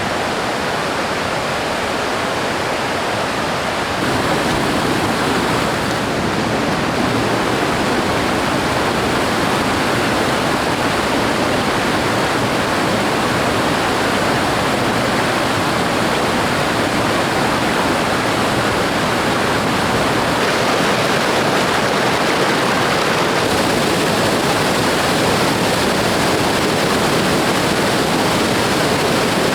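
River water rushing steadily, a little louder about four seconds in.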